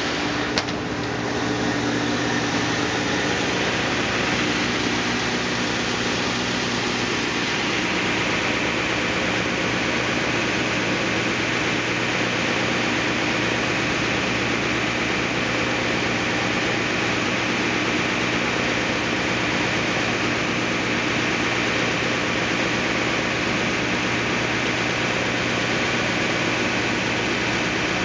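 Northtech 24-inch planer sander running steadily, its 20-horsepower-driven helical planer head spinning with a constant mechanical drone, with a single sharp click about half a second in.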